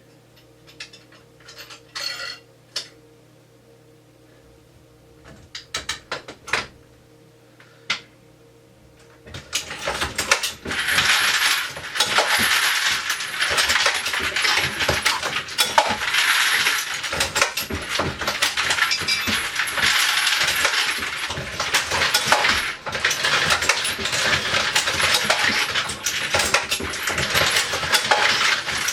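Reloading-press feeder hoppers on a Dillon XL650: a few scattered metallic clicks at first. About nine and a half seconds in, a loud, dense clinking and clattering starts as metal cartridge cases or bullets tumble in a rotating feeder.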